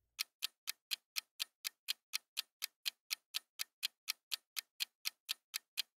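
Clock-ticking sound effect of a quiz countdown timer: even, sharp ticks at about four a second, counting down the time to answer.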